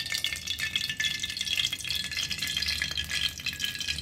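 Cooking oil poured in a thin stream into a wide metal kadai, with a steady light crackle and patter as it hits the pan.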